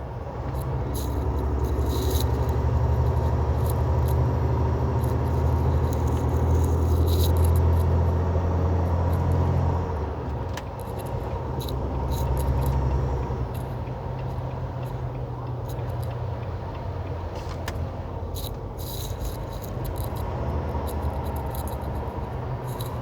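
Semi truck's diesel engine pulling under load, heard from inside the cab, with small rattles and clicks in the cab. The engine drone is strong at first and drops off about ten seconds in, staying lower after that.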